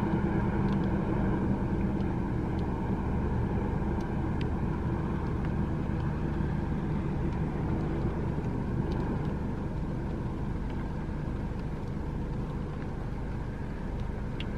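Car cruising at highway speed, heard from inside the cabin: steady engine and tyre drone, easing slightly over the stretch.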